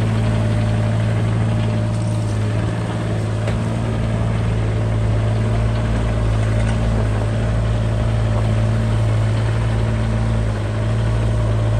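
Doosan DX27z mini excavator's diesel engine running at a steady speed.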